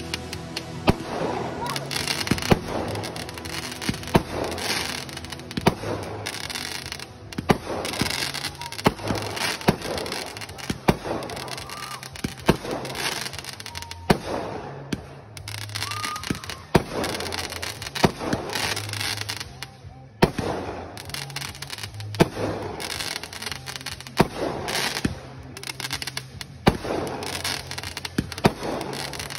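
Home consumer aerial fireworks launching and bursting: a steady run of sharp bangs, roughly one to two seconds apart.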